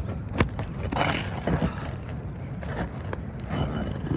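A hand tool working under roof shingles to free nails: sharp metal clicks and knocks, the loudest right at the start and just under half a second in, with short scrapes against the shingles in between.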